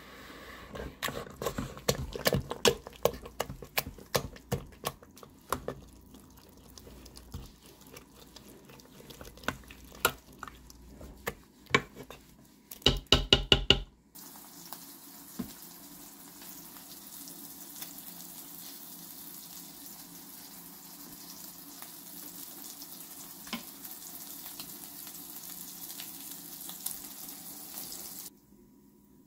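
A potato masher mashing cooked Jerusalem artichoke purée in a stainless steel Instant Pot inner pot: irregular squelches and metal clinks against the pot, then a quick run of loud taps just before the middle, as the masher is knocked against the pot. After that comes a steady hiss, which stops near the end.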